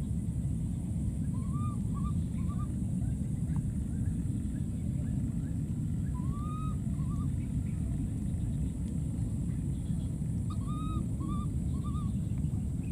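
A steady low rumble throughout, with three short groups of three quick rising-and-falling calls from an animal, about 1.5 s, 6.5 s and 11 s in.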